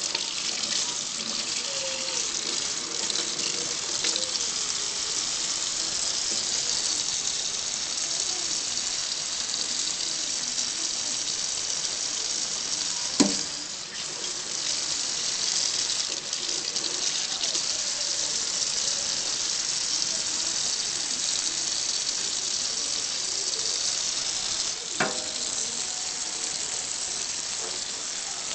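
Kitchen faucet running steadily into a stainless steel sink, the stream splashing over meat being rinsed by hand. Two short sharp knocks break in, about halfway through and near the end.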